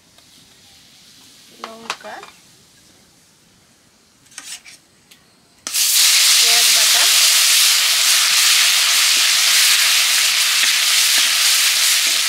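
Hot oil in a metal kadai sizzling faintly, with a couple of short sounds, then about six seconds in a sudden loud sizzle as a wet spice paste goes into the oil and fries hard while a metal spatula stirs it.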